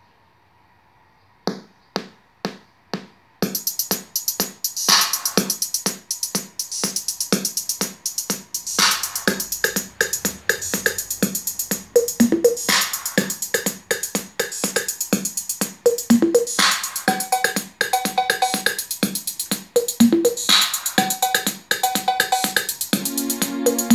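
Music with a steady beat played through a hi-fi receiver and its speakers. After a second and a half of near silence, four single hits sound about half a second apart, then the full beat comes in.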